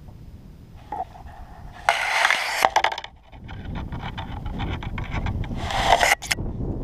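Rustling and scraping close to the microphone, in two bursts of crackly noise, about two seconds in and again near the end, over a low wind rumble.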